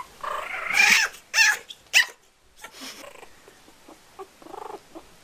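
A kitten and a puppy play-fighting: a few loud, short cries in the first two seconds, then quieter scuffling sounds.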